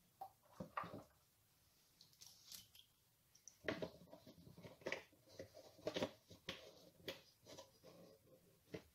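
Faint, irregular clinks and light knocks of a stainless-steel measuring cup against the rim of a stainless saucepan as cream is poured out and the cup is tapped and shaken empty. A few clicks come in the first second, and a denser run of knocks starts about three and a half seconds in.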